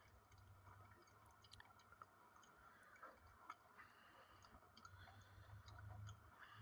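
Near silence with faint scattered clicks: a capuchin monkey chewing an overripe banana.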